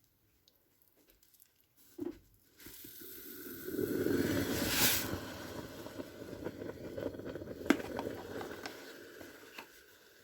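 Caustic soda reacting in boiling water around die-cast metal car bodies: a fizzing, bubbling hiss that starts about three seconds in, peaks a second or two later, then carries on more steadily with scattered small ticks.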